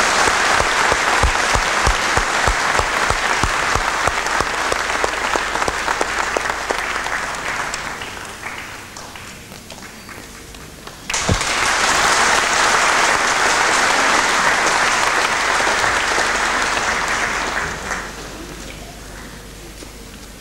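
Audience applauding in a large hall. The applause dies down about eight seconds in, breaks out again abruptly about three seconds later, and fades near the end.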